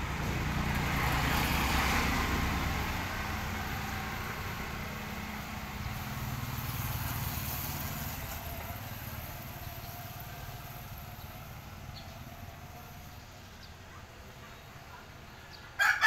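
A motor scooter goes by, its small engine swelling and fading, and a few seconds later a small motorcycle passes the same way before the street goes quiet. Just before the end a rooster starts crowing loudly.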